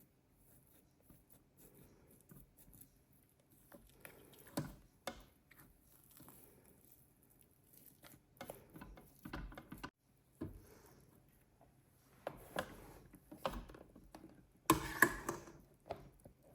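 Kitchen utensils being handled: irregular scrapes, taps and light clatters, with a louder half-second clatter about 15 seconds in.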